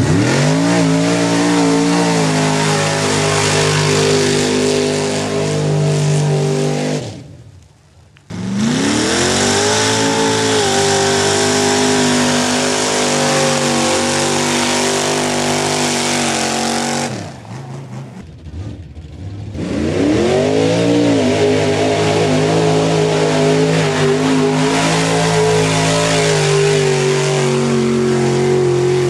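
Mud-bogging 4x4 trucks' engines revving hard through a mud pit, in three separate runs. Each run opens with the revs climbing quickly, then holds at high revs. The sound cuts off sharply about seven seconds in and again about seventeen seconds in, as one run gives way to the next.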